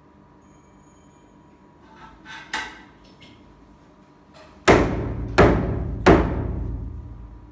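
Three hard knocks about two-thirds of a second apart, each trailing off in a ringing decay, as a rifle scope is slammed end-down onto a thick acrylic block in an impact test. A couple of lighter knocks come a little before halfway through.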